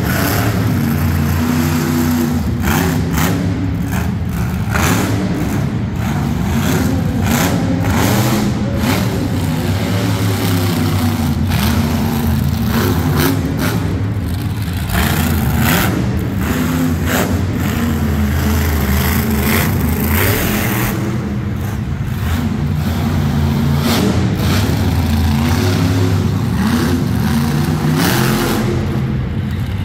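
A monster truck's supercharged V8 running hard and revving, its pitch rising and falling over and over with the throttle.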